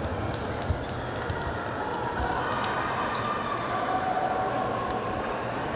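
Table tennis balls clicking off paddles and tables, many short sharp ticks at irregular moments from several rallies at once, over the steady murmur of a crowd in a large gym hall.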